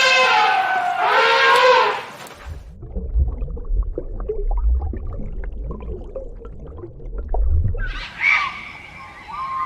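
A sequence of animal calls: a long pitched call that bends and stops about two seconds in, a stretch of low rumbling with faint clicks, then short sliding, chirping calls starting near the end.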